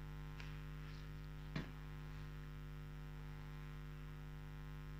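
Steady electrical mains hum with a couple of short clicks, the louder one about a second and a half in.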